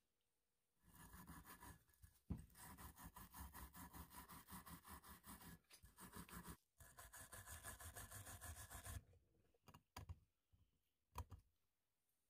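A small stiff brush scrubbing the brass body of an antique miner's carbide lamp, in quick back-and-forth strokes about four a second with one short pause. Near the end come a few light knocks.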